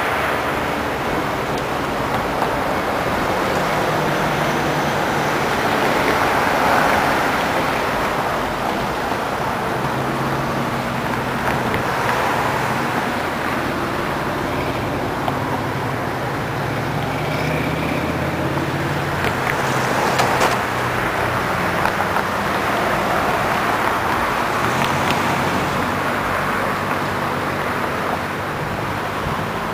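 Road traffic passing over a town bridge: car engines and tyres rising and fading as vehicles go by, over a steady wash of background noise.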